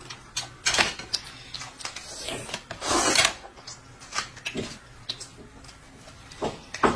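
Eating sounds: noodles slurped from a bowl of broth, with one long slurp about three seconds in, among short wet clicks and smacks of chewing.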